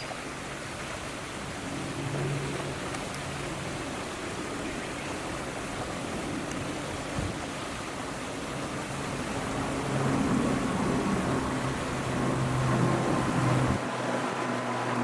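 Wind blowing across the microphone, with a steady low hum under it that grows louder in the last few seconds.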